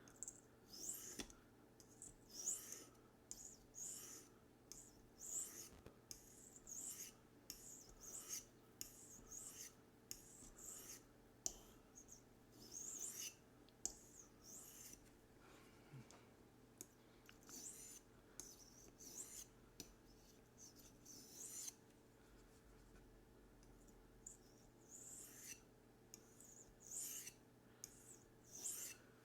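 D2 steel knife blade drawn in repeated strokes across a gray ceramic sharpening stone, each pass a faint, high scraping hiss, about one stroke a second, with a short pause about three-quarters of the way through.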